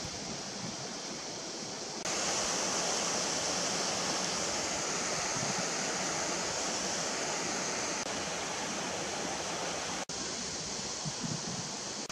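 Steady rushing water, like a waterfall or fast stream, that gets suddenly louder about two seconds in and breaks off for an instant near the end.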